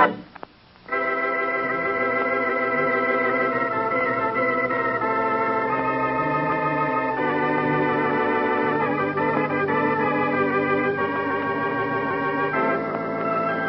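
Organ music: after a brief gap, slow held organ chords that change every second or two, typical of a radio drama's closing theme.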